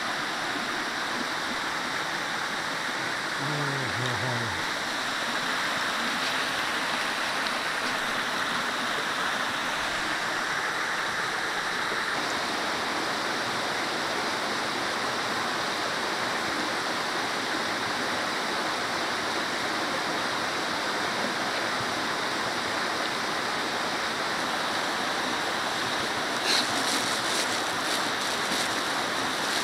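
Creek water running over rocks, a steady even rush. A few light clicks near the end.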